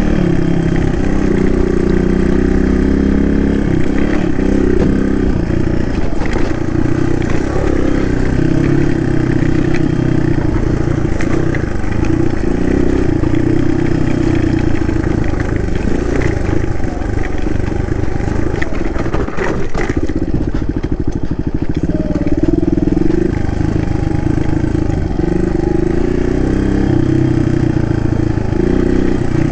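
Suzuki DR200's single-cylinder four-stroke engine running steadily under way. Its note rises and falls a little with the throttle, and about twenty seconds in it drops back briefly among a few knocks.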